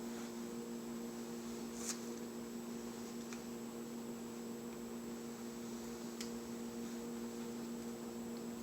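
Steady electrical hum with a thin high whine above it, and a few faint soft clicks.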